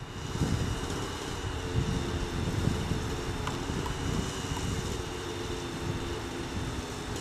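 Align T-Rex 600 nitro RC helicopter's OS-55HZ-H glow engine running steadily, a few even tones holding pitch, with wind buffeting the microphone.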